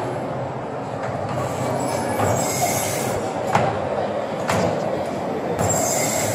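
Kiddie ride train running on its small track: a steady rolling sound with a few sharp clicks about a second apart.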